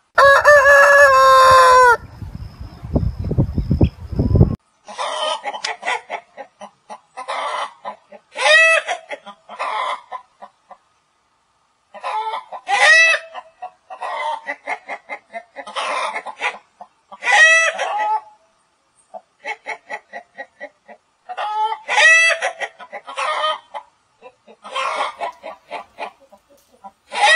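A rooster crows once, loudly, over the first two seconds. After a short stretch of low noise, chickens give short squawking calls and clucks, repeating every second or two until the end.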